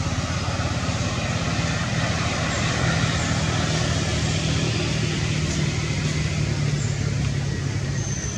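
Motor vehicle engine and road noise running steadily, with a low engine hum that grows a little louder in the middle.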